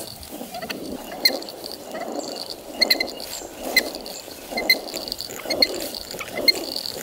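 Hand-turned stone grinders (rotary querns) grinding finger millet into flour: the upper stone grates round on the lower one in a rhythmic swell about once a second, with sharp little ticks and clicks on top.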